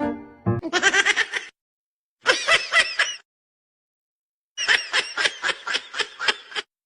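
High-pitched laughter in three bursts of quick, evenly spaced pulses, with silent gaps between them.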